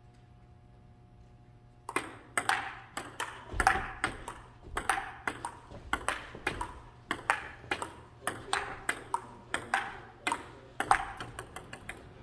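A table tennis rally: the ball clicks sharply off the paddles and the table in quick, uneven succession, about three hits a second. It starts about two seconds in, after a short quiet.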